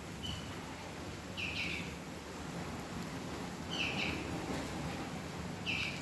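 A bird calling: four short chirps spaced a second or two apart over steady low background noise.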